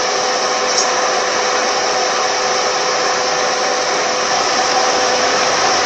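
Car air-conditioning blower fan running steadily: an even, airy whir with a faint steady hum underneath.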